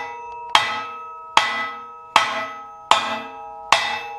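Hammer tapping the side of a welded aluminum xylophone frame: five evenly spaced blows a little under a second apart, each leaving the metal ringing with a clear tone. The taps bend the frame, which is bowed out about half an inch too wide, back into tolerance.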